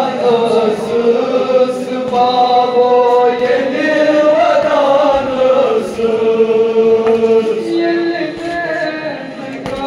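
A Kashmiri noha, a Shia lament, chanted by a group of men in long held, slowly gliding notes, several voices together. A few sharp slaps from chest-beating (matam) stand out here and there.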